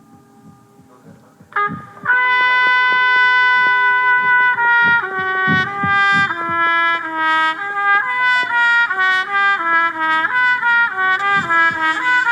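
Solo trumpet comes in about a second and a half in with a long held note, then plays shorter notes that step up and down and get quicker toward the end. A low throbbing pulse like a heartbeat runs underneath.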